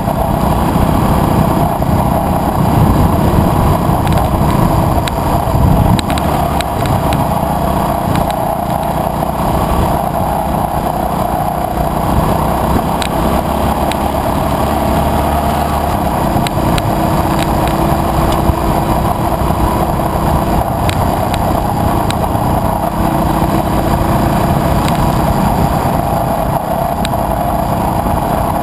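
KTM adventure motorcycle running steadily at cruising speed on a gravel road, with engine, tyre and wind noise blended into a constant rush, and scattered light ticks throughout.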